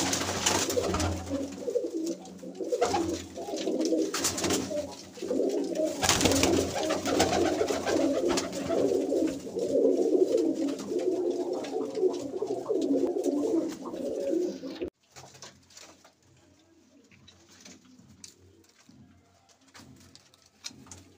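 Many domestic pigeons cooing, their coos overlapping. About fifteen seconds in, the sound drops off suddenly to much fainter cooing.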